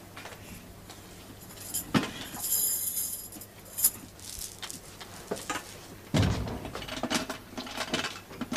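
A cash box handled on a desk while someone tries to open it: small clicks and light metallic jingling, with a dull thud about six seconds in.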